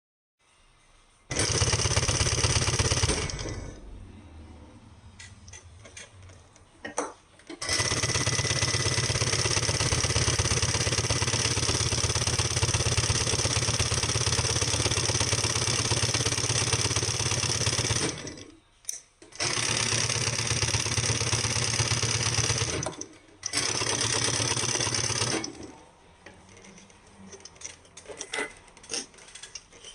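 Pfaff 1243 industrial flatbed sewing machine with a servo motor stitching at speed in runs: a short burst, a long run of about ten seconds, then two shorter runs, with light clicks and ticks in the pauses between them. The machine has just been serviced.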